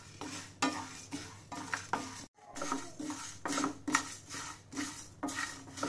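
Whole spices being dry-roasted in a pan and stirred: repeated scrapes and clinks of the stirring utensil against the pan, about two a second, with a brief dropout a little over two seconds in.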